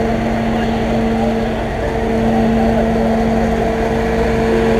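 Fire truck engine running steadily: a loud, even drone with a constant hum.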